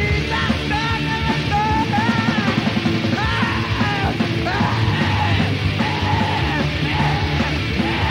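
Heavy metal song: a high melody line over driving drums.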